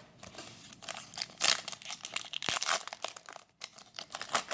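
Foil Yu-Gi-Oh booster pack wrapper crinkling as it is handled and torn open, in a string of irregular crackles.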